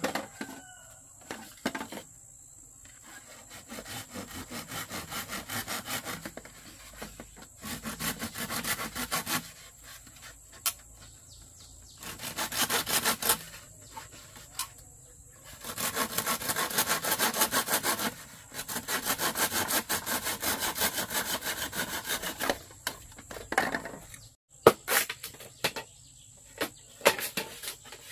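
Quick, evenly repeated back-and-forth rasping strokes, in several bursts a few seconds long with short pauses between them.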